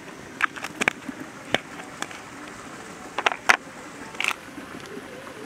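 Scattered sharp clicks and light knocks of plastic spice containers, lids and a spoon being handled, in small clusters, over a steady outdoor background hiss.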